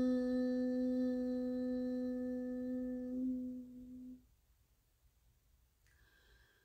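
A woman's voice holds a long chanted Om on one steady pitch, its closing hummed 'mmm' fading and ending a little past four seconds in. Near silence follows for a breath.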